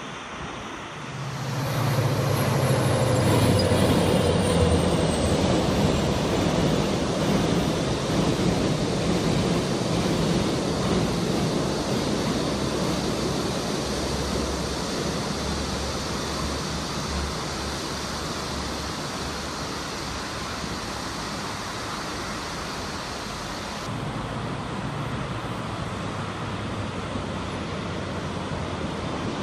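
Trains running across a steel railway bridge: a steady rumble of wheels on rails that swells sharply about a second in, with a thin falling whine over the next few seconds. In the last few seconds a low hum comes in as an EMD GT26CW diesel locomotive approaches.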